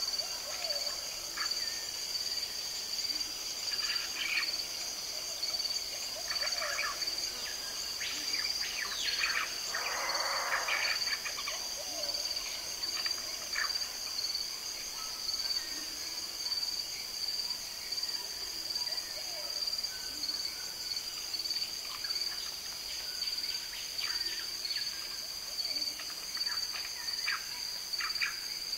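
Natural-habitat soundscape: a steady, high-pitched chorus of insects at two pitches, with scattered bird calls and chirps over it. The loudest of these is a harsher call about ten seconds in.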